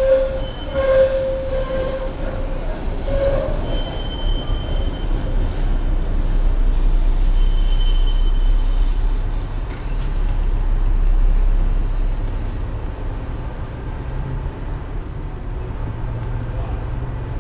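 A tram's wheels squealing on the rails over the first few seconds, with a couple of short higher squeaks after. Under it the low rumble of a tram moving along the track, swelling twice.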